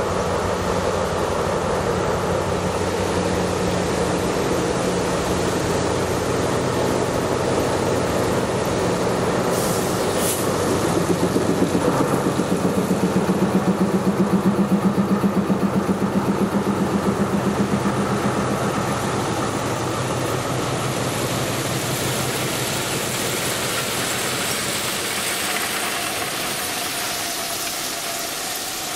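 Alsthom diesel-electric locomotive running slowly past at close range, its engine note pulsing and loudest about halfway through as the locomotive goes by. After that, loaded ballast hopper wagons roll past with a steady rushing noise as they drop ballast onto the track.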